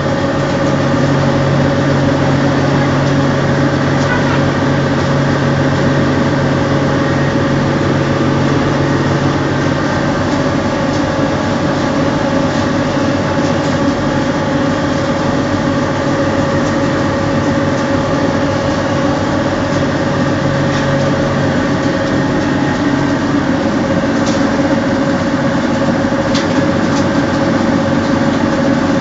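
Screw-type sawdust charcoal briquette extruder running under load as it pushes out briquette rods: a loud, steady mechanical hum with a constant whine over it. A lower hum drops away about ten seconds in, and there are a couple of faint ticks near the end.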